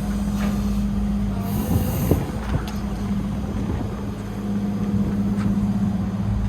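Sumitomo SH120LC-6 excavator's diesel engine running steadily, with a brief high hiss and a knock about two seconds in.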